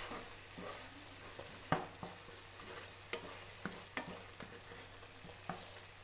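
Minced chicken sizzling in a thin ketchup, soy sauce and vinegar sauce in a non-stick pan, stirred with a plastic spoon. The spoon knocks and scrapes against the pan several times over a steady sizzle, the loudest knock a little under two seconds in.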